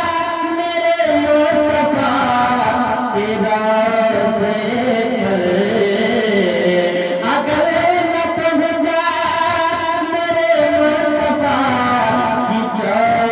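A man singing a naat, an Urdu devotional poem, into a microphone, in long held melodic phrases with ornamented bends in pitch.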